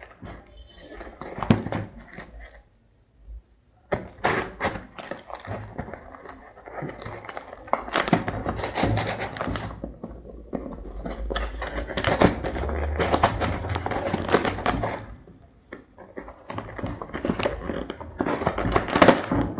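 Packing tape being peeled and torn off a cardboard shipping box, with cardboard scraping, rustling and knocking in irregular bursts and a short pause about three seconds in.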